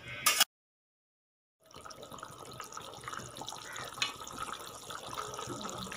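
Potato, pointed gourd and prawn curry simmering in an aluminium kadai: a steady, even bubbling hiss of the boiling gravy. It starts after a brief sharp noise and about a second of dead silence near the start.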